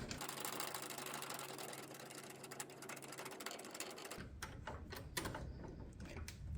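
Frame slider bolt being run into the motorcycle frame with a hand tool: a faint, fast run of small mechanical clicks for about four seconds, then a few separate clicks.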